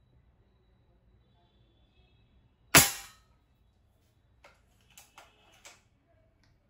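Gamo Roadster IGT 10X Gen2 air rifle, a break-barrel gas-piston gun, firing a single sharp shot with a short ringing tail, followed a second or two later by a few lighter mechanical clicks as the rifle is handled.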